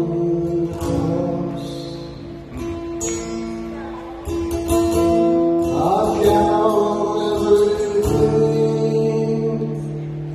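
Slow worship song: long held chords with a voice singing drawn-out notes.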